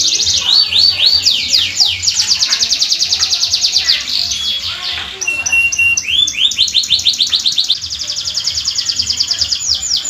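Domestic canary singing a long, unbroken song of fast rolling trills: rapidly repeated high sweeping notes, sliding down at first, then a short held note about five seconds in, followed by rising sweeps that run into a very fast trill.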